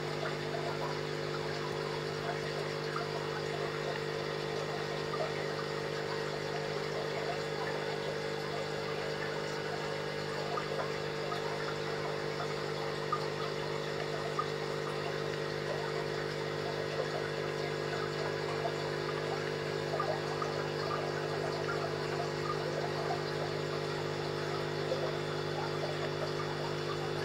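Aquarium pump or filter humming steadily, with water trickling and bubbling over it.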